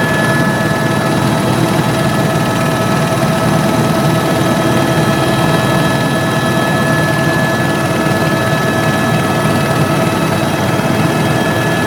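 Tour helicopter running steadily, heard from aboard: an even rushing drone with several steady whining tones over it, unchanging throughout.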